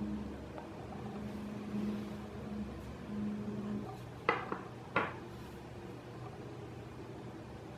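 Three short, sharp clicks, two close together about four seconds in and one a half second later, over a low steady hum.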